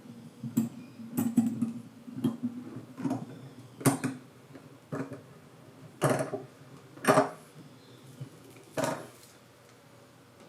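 Irregular clicks and knocks of small hard objects being handled and set down, about ten in all, the sharpest a little after four, six and seven seconds in, then quieter after about nine seconds.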